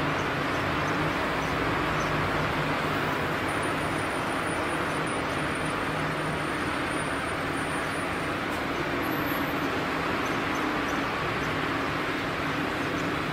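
Steady drone of distant engines, with a low hum running through it.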